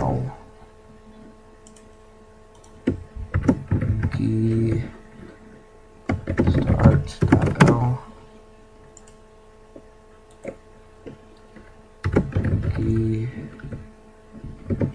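Computer keyboard typing in a few short bursts of keystrokes, with a faint steady hum underneath.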